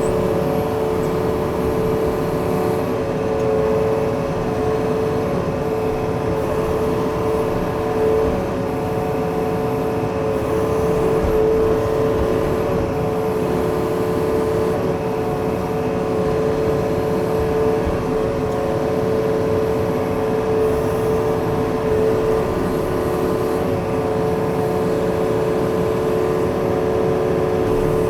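Yanmar machine's diesel engine running at a steady speed, with a steady whine over the rumble throughout.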